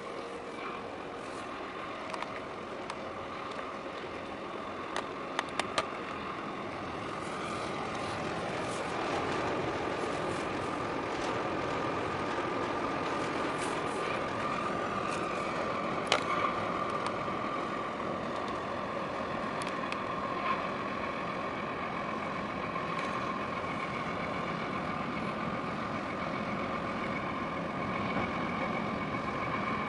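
Steady machinery drone with a steady whine running through it, from a large container ship passing close. It grows a little louder about eight seconds in, and a few sharp clicks are scattered through it.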